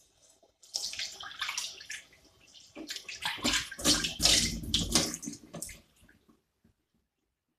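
Water running and splashing in a kitchen sink, irregular, stopping about six seconds in.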